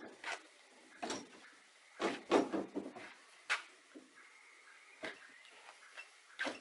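Plywood rowing skiff being rolled onto a van's roof rack: irregular knocks and clunks of the hull on the rack, with a sharp click near the end as it locks in place.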